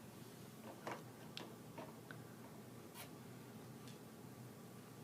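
Faint, scattered clicks and taps of toy pieces being handled, about six light knocks at uneven intervals.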